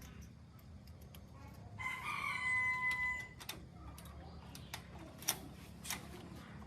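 A rooster crows once, a single call of about a second and a half, followed by a few sharp clicks or taps over a steady low hum.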